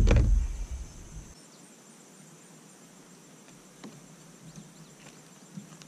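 Insects trilling steadily in the background, a high-pitched, faintly pulsing chorus. A loud low rumble with knocks fills the first second or so, then cuts out, and a few light clicks follow later.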